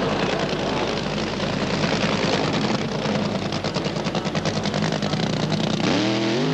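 Supercharged drag-racing funny car engine running at the start line: a loud, rapid crackle of firing pulses over a low drone. Near the end a pitched tone rises and then holds steady.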